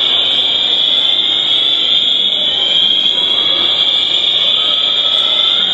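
Building fire alarm sounding continuously: one loud, steady, high-pitched tone with no breaks.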